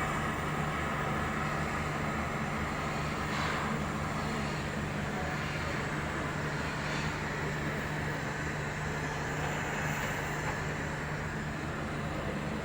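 Electric arc welding of a pipe nipple into a vessel: a steady hum with a constant hiss from the arc.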